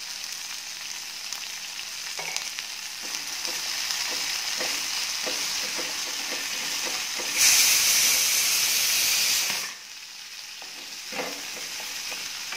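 Shallots, garlic and curry leaves sizzling in sesame oil in a metal kadai, stirred with a wooden spatula that taps and scrapes the pan. About halfway through, a louder hiss rises for about two seconds and then stops.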